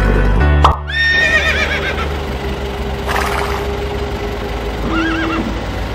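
Horse whinnying: a long, quavering neigh that falls in pitch about a second in, and a shorter one near the end. Music stops abruptly just before the first neigh.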